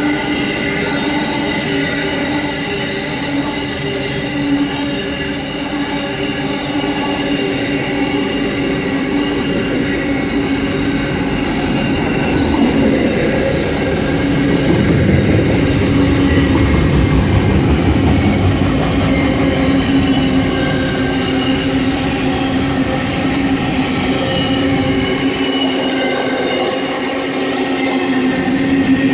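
Freight train wagons rolling past at close range: a continuous rumble of steel wheels on rail with several steady squealing tones held over it. The rumble grows louder about halfway through.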